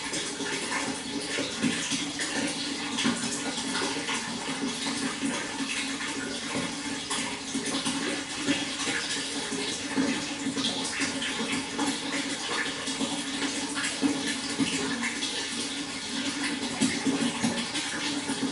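Water flowing steadily, with many small splashes and gurgles throughout.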